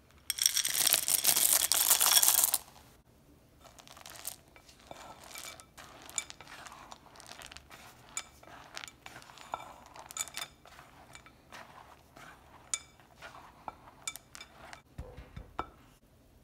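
Large chocolate chips poured from a small glass bowl, clattering into a glass mixing bowl of dry cocoa-flour mix for about two seconds. Then a silicone spatula stirs the chips through the dry mix, scraping with scattered light clicks of chips against the glass. A low thud comes near the end.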